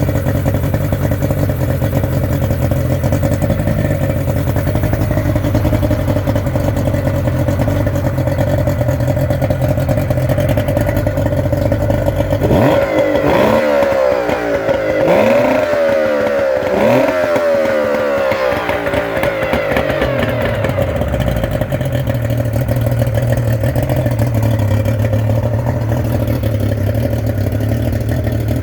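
Yamaha 90 hp two-stroke outboard motor idling, then revved three times in quick succession about halfway through before settling back to idle.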